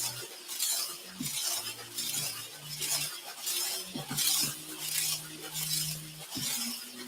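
Rhythmic rattling swish, a burst a little under once a second, over a low hum.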